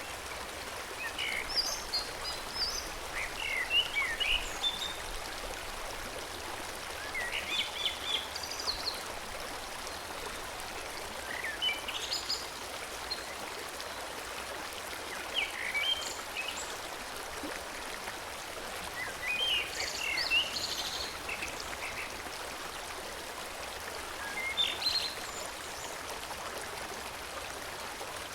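Forest stream flowing steadily, with a songbird singing short, chirpy phrases about every four seconds over the water.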